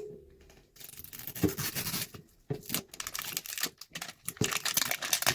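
Plastic wrapping of an LOL Surprise ball being torn off and crinkled by hand. It starts about a second in and goes on as irregular crackling and ripping.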